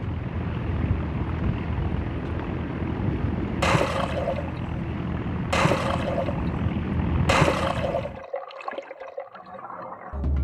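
Inflatable dive boat running fast over choppy sea: a steady motor drone under rushing wind and water, with three loud surges of spray as the hull slams into waves. It drops to a quieter wash near the end.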